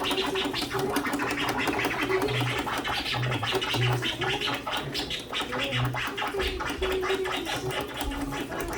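Rapid back-and-forth record scratching on a DJ turntable over music.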